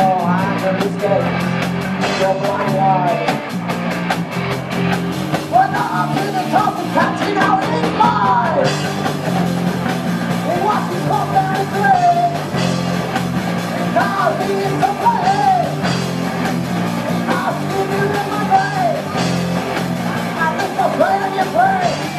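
Rock band playing live: a male lead vocal sung over electric guitars and a drum kit, with cymbals keeping a steady beat.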